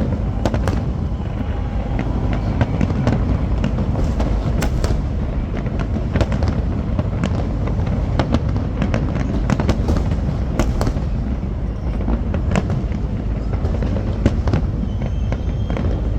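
Aerial fireworks going off in quick, irregular succession: many sharp bangs and crackles over a continuous low rumble.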